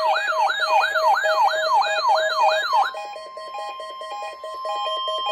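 Weather radio alert signal. A fast electronic siren sweeps about three times a second over a steady lower tone and short repeating beeps. About three seconds in, the siren stops and a single steady warning tone continues under the beeps: the NOAA Weather Radio warning alarm being tested.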